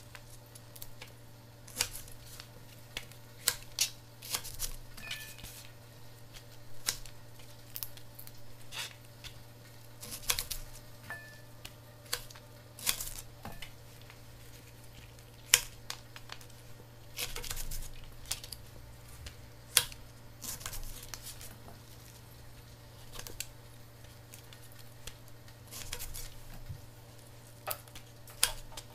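Paring knife trimming and halving Brussels sprouts: irregular sharp taps of the blade going through the sprouts, with halves dropping into a bowl, over a steady low hum.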